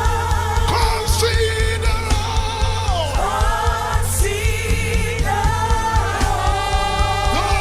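Gospel worship music: voices singing long, wavering notes over a band with an evenly pulsing low beat.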